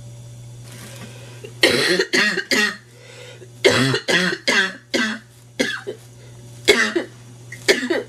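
A woman with a nasty cold coughing: harsh barking coughs in quick runs of several, then single coughs spaced out toward the end.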